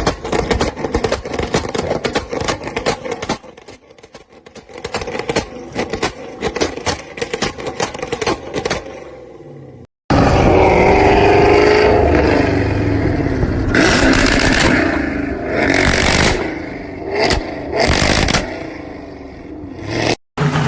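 Chevrolet Camaro V8 exhaust popping and crackling rapidly. After a short break about ten seconds in, the engine runs loud and steady with several quick revs.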